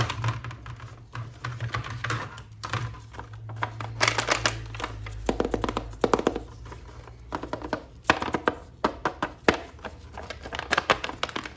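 Hands handling a plastic-packaged action figure, making quick clusters of clicks and crackles over a steady low hum.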